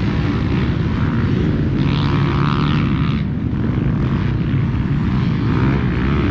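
Dirt bike engines running, a loud, steady drone of several motors together.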